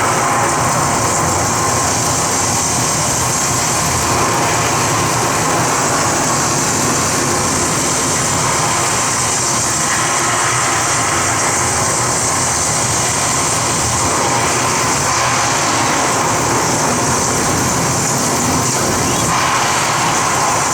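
Artificial indoor rain shower falling steadily as an even, unbroken hiss of water.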